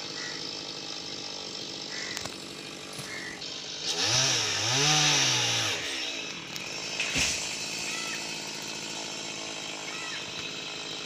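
Chainsaw running steadily at low speed, then revved up and down twice about four seconds in as it cuts through the top of a palm trunk; a sharp crack follows about a second later.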